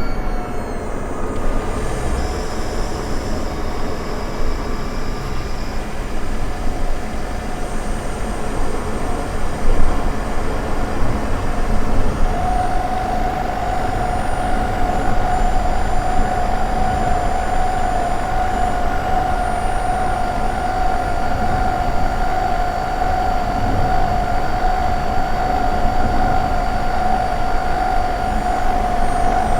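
Honda ZR-V running, heard from a microphone inside the engine compartment: a steady mechanical rumble, joined about twelve seconds in by a steady high whine that holds on. This is the abnormal noise the owner is tracing, which he suspects comes from the engine bay.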